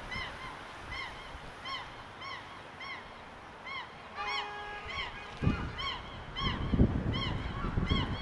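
Geese honking over and over, about two calls a second. About four seconds in a brief steady chord of tones sounds for under a second, and in the second half low rumbling thumps come in under the calls.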